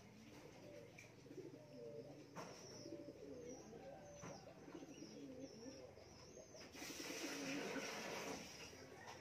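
Doves cooing repeatedly in low, gliding calls, with a few short high chirps. About seven seconds in, a steady hiss rises for a couple of seconds.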